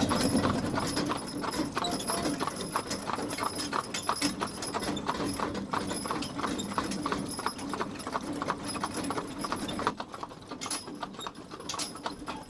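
Hoofbeats of a team of mules pulling a wagon, a quick, even rhythm of about three or four steps a second. The steps grow sparser and quieter about ten seconds in.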